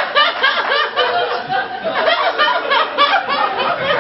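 Audience laughing, a quick run of repeated laughs.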